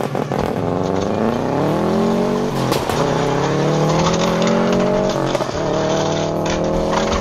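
Race car engine sound effect accelerating up through the gears: the engine note climbs, drops at a gear shift about two and a half seconds in, climbs again, shifts again around five seconds, then climbs once more.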